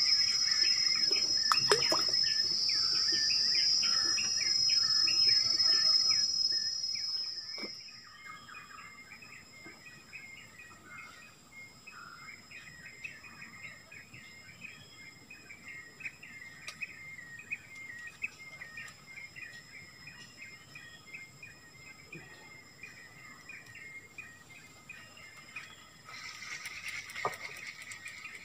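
Insects and birds in riverside forest: a loud, steady high insect drone that drops away about seven seconds in, leaving softer, rapid repeated chirping. The drone comes back near the end, with a few faint knocks along the way.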